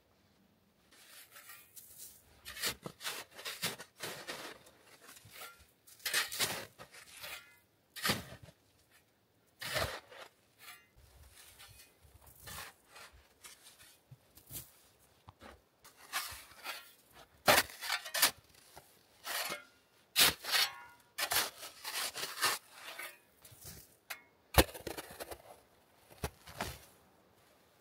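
Metal shovel digging and scraping through snow down to the ground, in uneven strokes of crunching and scraping with a few sharp clicks of the blade.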